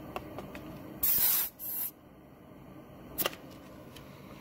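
Air hissing from a car tire's valve stem as a digital tire gauge is seated on it to take a reading: two short bursts about a second in, the first louder. A single click follows a little after three seconds.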